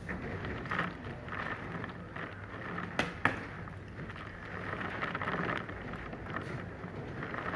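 Hailstorm: a steady rush of wind and falling rain and hail, with scattered hits and two sharp knocks close together about three seconds in.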